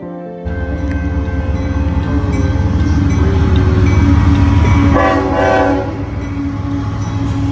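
Train passing close by: a loud low rumble that starts suddenly, with the horn sounding a chord for about a second about five seconds in.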